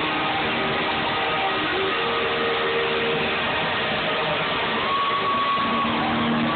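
Loud live band and singing from a rock musical, heavily distorted on a phone microphone. Long held notes carry over a dense, smeared wash of sound.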